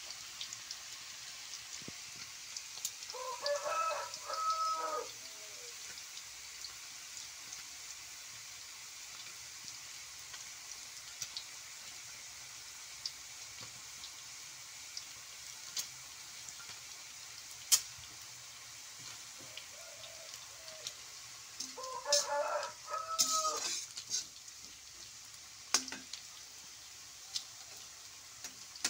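Stir-frying in a wok: bean sprouts and noodles sizzle steadily, with occasional clinks and scrapes of a metal spatula on the pan. A rooster crows twice, about three seconds in and again about twenty-two seconds in.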